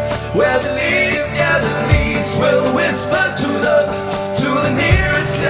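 Music: a country-style song led by strummed acoustic guitar, with deep bass notes now and then.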